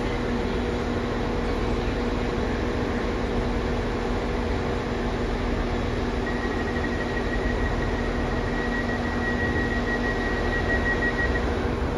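Diesel multiple units standing at the platform with their engines idling: a steady drone with a low hum. About halfway through, a high steady whine comes in and stops shortly before the end.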